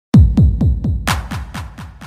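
Electronic dance music with a deep booming kick drum that drops in pitch on each beat, about four beats a second, joined by hissy hits about a second in.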